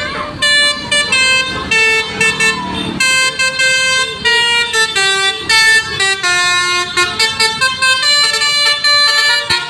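Basuri (telolet) multi-trumpet bus horn playing a tune: a quick run of clear, steady horn notes stepping from pitch to pitch, some short and some held.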